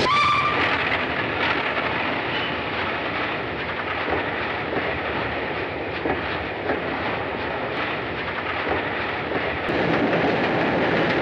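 Steam train running: a brief whistle at the start, then the steady noisy rattle and clatter of the locomotive and its wagons.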